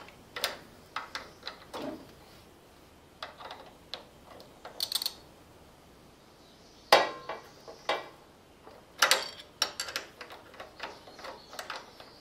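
A combination wrench and a small Torx-bit ratchet working the rocker-arm adjuster screw and 13 mm locknut of a Briggs & Stratton 20 HP V-twin while the valve lash is set. Scattered metal clicks and clinks, with a short run of ratchet-like clicking, and two louder metallic knocks about 7 and 9 seconds in.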